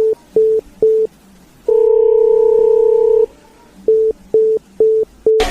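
Electronic beep tones: short, evenly spaced beeps at about two a second, then one long held beep of about a second and a half, then four more short beeps.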